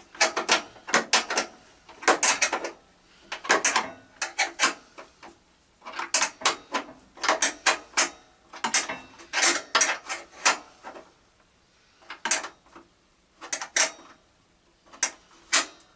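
Metal hand tools being handled, clicking and clattering in short bursts of a few sharp clicks each, with brief pauses between bursts.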